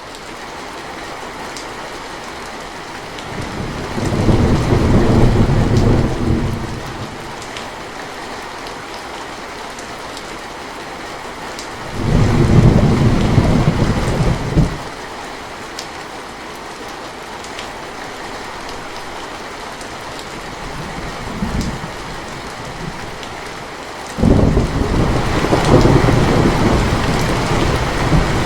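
Steady rain falling, with rolling thunder rumbles: one about four seconds in, another about twelve seconds in, a brief faint one near twenty-one seconds, and a long one starting near the end that keeps going.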